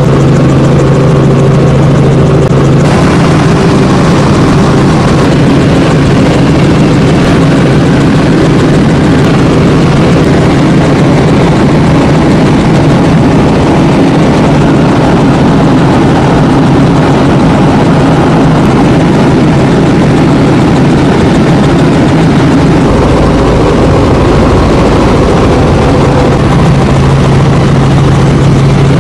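Helicopter in flight heard from inside the cabin: loud, steady rotor and engine drone. A steady low hum drops away about three seconds in, leaving rougher, noisier running, and returns near the end.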